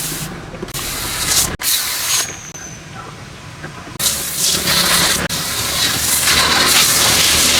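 Pressure washer jet spraying water onto a car, cutting off and starting again a couple of times, then spraying steadily from about four seconds in.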